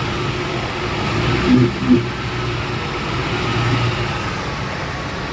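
2003 Ford F-150's 4.6-litre V8 engine running steadily, with two short louder bumps about a second and a half in; the truck is making a weird noise that its owner cannot place.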